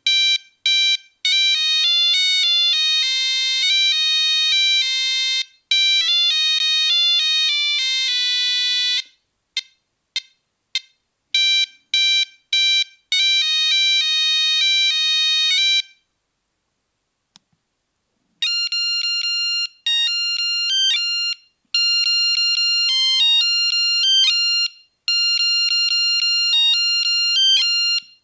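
Nokia 3310 monophonic ringtones: a melody of short, buzzy single-note beeps that stops about two-thirds of the way through. After a two-second pause a different ringtone melody starts.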